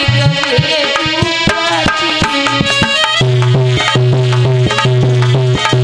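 Instrumental folk music: a hand drum playing fast strokes under a melody line. About three seconds in, a deep held bass note comes in.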